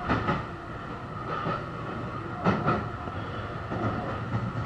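Meitetsu electric commuter train running, heard from inside the passenger car: a steady running noise with a high whine, broken by the wheels knocking over rail joints in close pairs.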